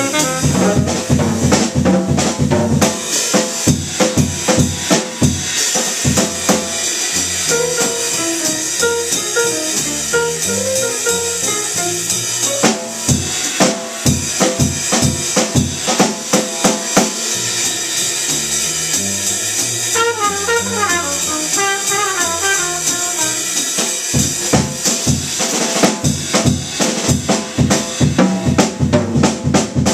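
Small jazz combo playing, the drum kit prominent with many sharp hits over piano and upright bass.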